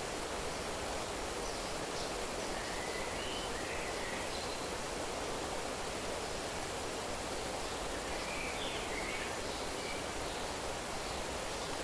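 Steady rushing of flowing water, with faint bird chirps in two short bouts, a few seconds in and again past the middle.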